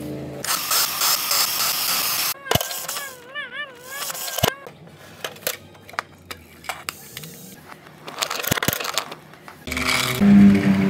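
Plastic toys handled on a wooden floor: clicks, knocks and rattles from a toy bus garage's roll-up doors and the toy buses pushed in and out of it. A warbling tone sounds about three seconds in, and a louder pitched sound comes near the end.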